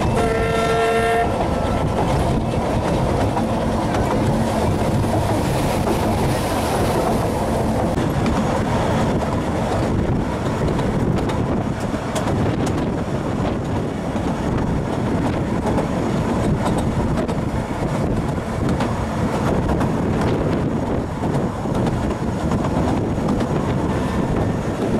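Narrow-gauge steam train running along the line with a steady rumble and wheel clatter. Near the start the locomotive's whistle gives one short blast of about a second.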